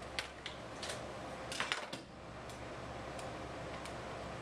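Light plastic key clicks, several in the first two seconds and then a few fainter ticks, over a steady low room hum. The pause comes while 16 times 48 is being worked out on a calculator.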